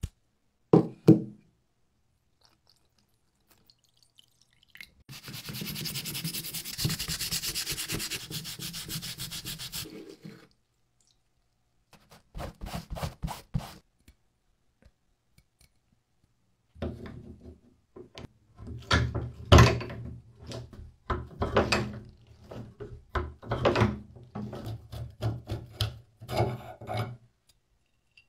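Scrubbing and scraping on a rusty antique adjustable wrench whose moving parts are rusted solid. A knock comes about a second in, then about five seconds of steady scrubbing and a shorter burst of it, then a string of scrapes and knocks.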